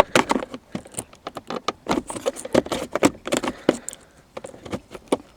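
Plastic centre-console trim panel of a Toyota Corolla being pried up with a flat tool: a quick, irregular run of plastic clicks, creaks and scrapes as the clips give way.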